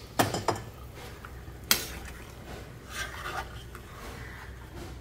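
A steel ladle stirring a watery curry in a stainless steel pot. It scrapes and gives a few sharp knocks against the pot, the loudest a little under two seconds in.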